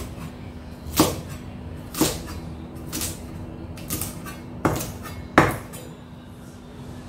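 A cleaver chopping cabbage leaves on a wooden chopping board, about one chop a second, with two quicker chops near five seconds, the second the loudest.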